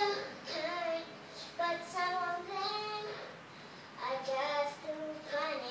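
A young girl singing a tune in phrases with held notes, with a pause of about a second midway.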